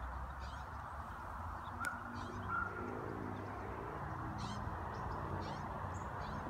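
Outdoor ambience: a faint, steady low rumble with birds calling faintly several times, and a single sharp click about two seconds in.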